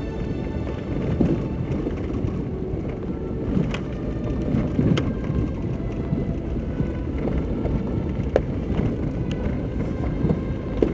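A vehicle driving over a rough dirt track, a steady low rumble with a few sharp knocks from bumps, about four, five and eight and a half seconds in.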